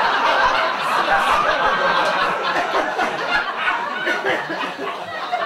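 Audience laughing hard, a loud burst of crowd laughter that is strongest in the first couple of seconds and slowly eases off near the end.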